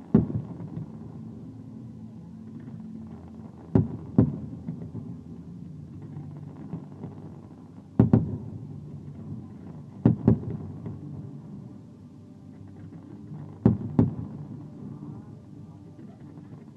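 Fireworks shells bursting, about eight sharp bangs, several of them in close pairs, over a steady low background noise.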